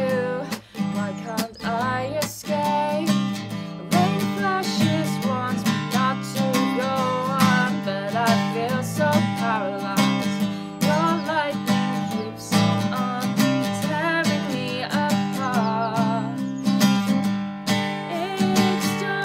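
Acoustic guitar strummed in a steady accompaniment, with a woman's voice singing a melody over it.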